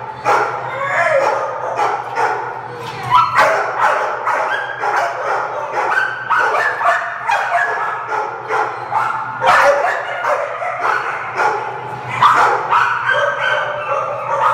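Dogs barking and yipping without a break, many short calls overlapping, over a steady low hum.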